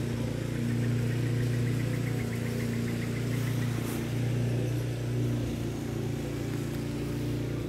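Steady low hum of an idling engine, with a faint rapid high ticking trill starting about a second in and lasting about three seconds.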